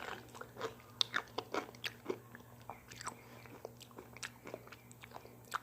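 Crunching from biting into and chewing a large pickle close to the microphone: a run of sharp crackles, thickest in the first couple of seconds, then thinning out.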